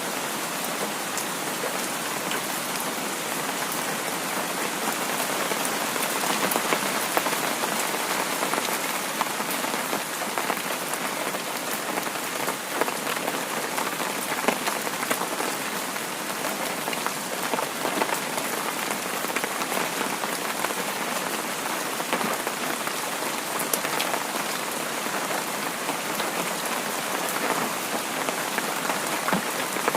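Heavy rain falling steadily, a dense even hiss with many individual drops pattering on hard surfaces.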